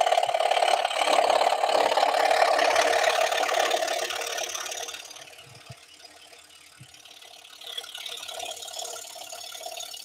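Scroll saw running, its fine reciprocating blade cutting through thin wood, a steady buzzing rattle. It is loud at first and drops much quieter from about five seconds in, then rises a little again toward the end.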